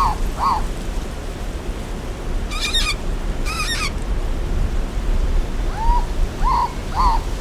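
Bird calls: a short arched note repeated about twice a second that stops just after the start and resumes near the end, with two brief bursts of higher, warbling calls about a second apart in the gap, over a steady low rumble of background noise.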